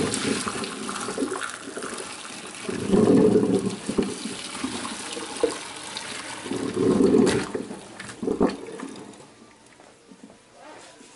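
Boiled cabbage and its hot cooking water being poured from a pot into a plastic colander in a stainless steel sink. The water gushes and splashes in three surges, then dies down to a trickle near the end.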